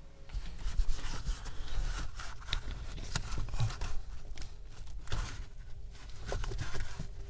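Scattered rustling, scraping and small clicks of gloved hands working behind the dashboard, feeding a wiring cable through the car's firewall.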